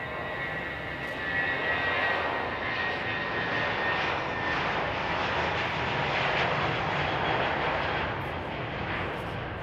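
Airbus A320's twin jet engines at takeoff thrust as the airliner accelerates down the runway: a steady roar that swells about a second in, with a high whine over it that fades after the first couple of seconds.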